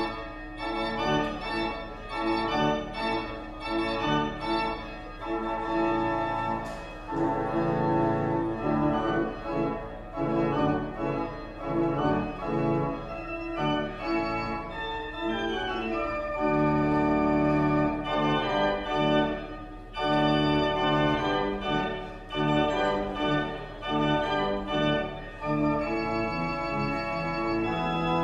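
Organ music: a slow piece of held chords that change every second or so, with a steady low hum underneath.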